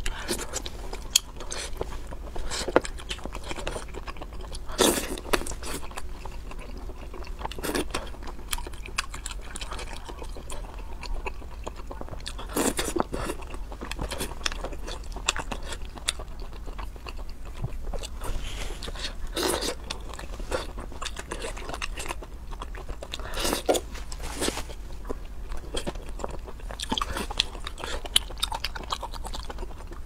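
Close-up eating of spicy seafood: steady irregular chewing and biting with crunchy, wet mouth sounds, and a few louder bites or sucks scattered through.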